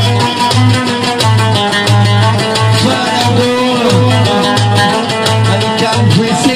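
Loud amplified Sa'idi dance music from a live festival band: an instrumental passage with a steady pulsing drum beat of about two beats a second under a melody that slides in pitch. There is no singing.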